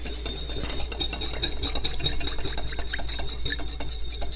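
Wire whisk beating a thin liquid dressing in a glass bowl: a rapid, even clatter of the wires against the glass, many strokes a second.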